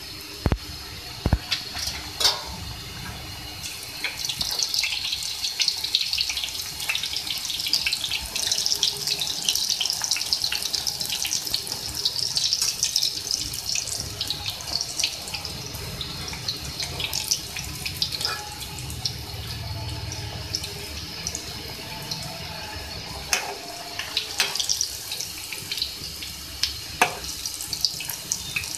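Aloo puris deep-frying in hot oil: a steady crackling sizzle. A few sharp knocks sound in the first couple of seconds and again near the end.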